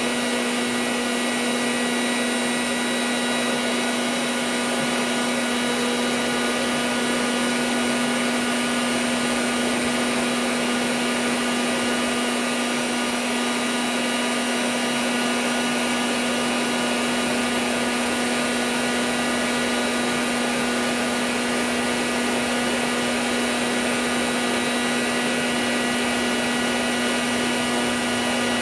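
Electric forge blower running steadily, a constant motor hum under a rush of air, blowing the fire while the iron is brought up to forge-welding heat.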